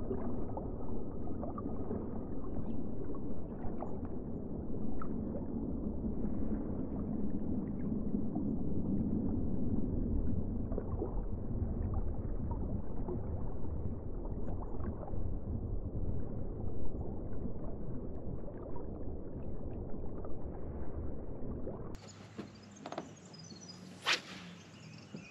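Muffled underwater sound from a camera held below the river surface: a low, dull rumble and slosh of water with faint ticks, all the higher sounds cut away. Near the end it switches suddenly to quieter open-air sound with a couple of short sharp sounds.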